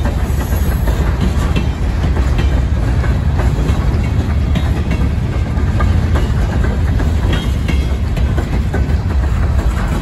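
Loaded freight train of covered hopper cars rolling past close by: a loud, steady low rumble of steel wheels on rail, with clickety-clack over the rail joints and scattered short clanks.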